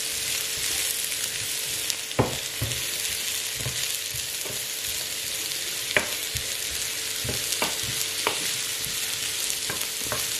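Sliced button mushrooms sizzling in butter with garlic and onion in a hot skillet while being stirred with a wooden spoon. The spoon knocks against the enamelled pan about half a dozen times over the steady hiss, with a faint steady hum underneath.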